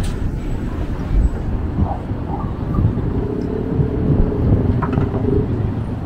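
Car traffic on the bridge roadway below: a steady low rumble of engines and tyres, with one vehicle's hum standing out for a couple of seconds in the middle.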